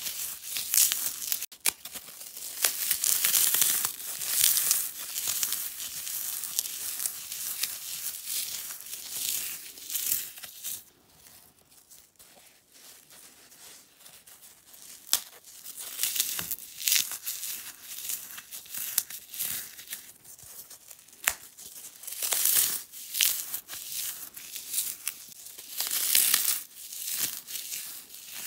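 Dry floral foam coated in cornstarch and baby powder being crushed and crumbled by hand: a dense crunching crackle full of sharp snaps. It goes softer for a few seconds around the middle, then the crunching picks up again.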